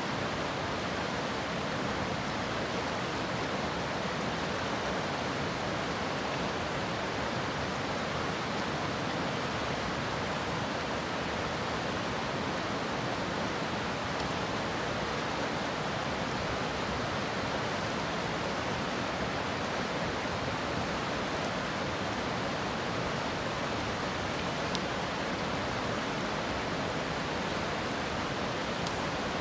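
Fast river current running over a cobble riffle: a steady, unbroken rush of water.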